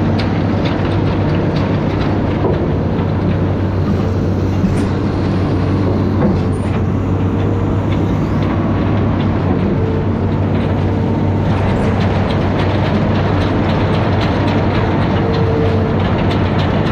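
Amphibious excavator's diesel engine running steadily with a low hum, with scattered knocks and clanks from the machine and a few brief whines as it works.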